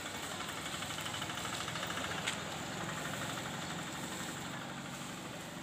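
Steady hiss of rain and wet-street noise with a motorcycle engine running past, its hum strongest in the second half. A single sharp click a little after two seconds in.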